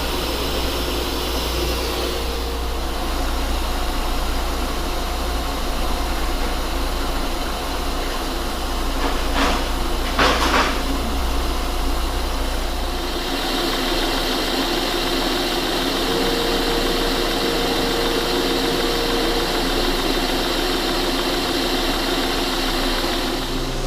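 Metal lathe running steadily with a machine hum. About halfway through, the hum changes and a steady high whine comes in. Two brief noises come about ten seconds in.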